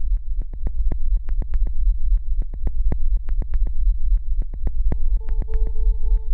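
Background music: a deep synthesized rumble with rapid ticks, about five a second, joined by a held note about five seconds in.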